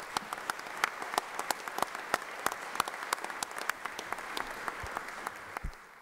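A crowd of House members and guests applauding, with many hands clapping at once. The applause fades near the end.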